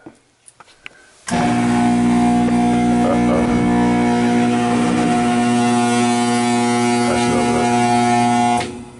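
Air-conditioning blower motor powered up and humming loudly: a steady electrical buzz that switches on suddenly about a second in and cuts off suddenly near the end. It is the sound of a bad blower motor, which the technician takes for a blower problem.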